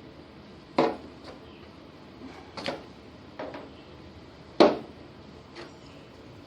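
About six sharp knocks and clanks of hard objects at irregular intervals, with the loudest about a second in and again a little past halfway.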